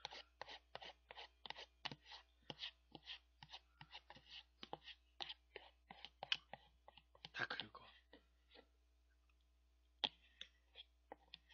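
A plastic spoon scraping and tapping inside a paper ice cream tub, scooping out the last of the ice cream, in quick short clicks about three a second that thin out to a few scattered taps near the end.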